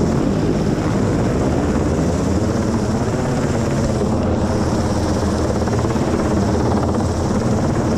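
UH-60 Black Hawk helicopter, a twin-turboshaft utility helicopter, hovering close overhead: loud, steady rotor and engine noise with a fast, even beat of the blades.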